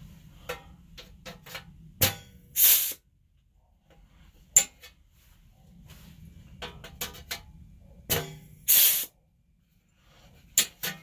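Air-powered hole punch and flanging tool working on sheet metal: twice a sharp clack of the punch followed by a short blast of exhaust air hiss, with lighter clicks of handling the tool between.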